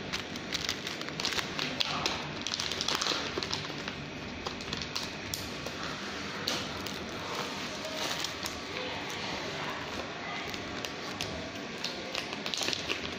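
Plastic-wrapped cardboard product box being handled: crinkling of the plastic film and light taps, over a steady background hum.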